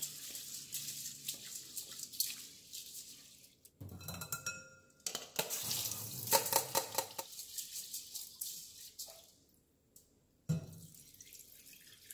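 Raw medium-grain rice being rinsed by hand in a stainless steel pot at a sink: water swishing and splashing, tap water running into the pot, and the cloudy rinse water poured off through a mesh strainer. A knock of metal about ten seconds in.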